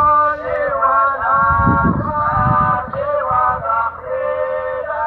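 Voices chanting a du'a, an Islamic supplication, in long held notes that slide between pitches, with an irregular low rumble beneath.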